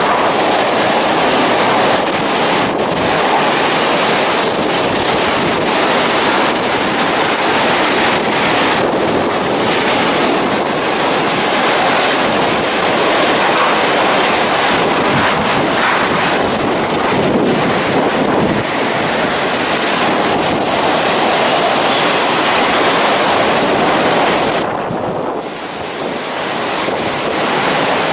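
Typhoon wind blowing hard and buffeting the microphone: a loud, steady rushing that eases for a moment about 25 seconds in.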